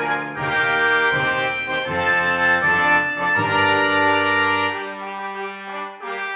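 Instrumental background music led by brass, playing held notes that change about once a second.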